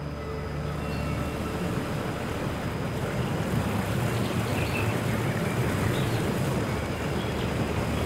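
A steady rushing noise, like a wash of wind or surf.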